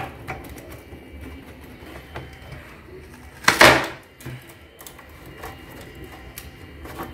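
Hard plastic cover panel of a Veteran Sherman electric unicycle being pried loose by hand: scattered small clicks and creaks of the plastic, with a sharp click at the start and one louder noisy rasp lasting about half a second a little past halfway.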